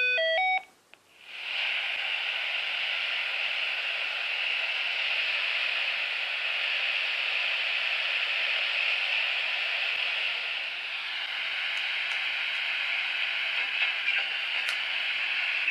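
A Sainsonic handheld dual-band radio gives a quick run of short beeps, then its speaker plays steady static hiss from about a second in. The hiss means no signal is being received on the stock antenna.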